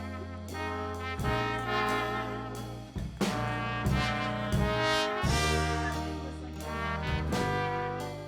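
Background music with brass instruments, a sustained bass and changing chords.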